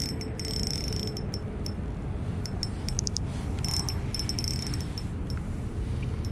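Steady low rumble of wind on the microphone under a faint steady hum, with several short bursts of rapid high-pitched clicking.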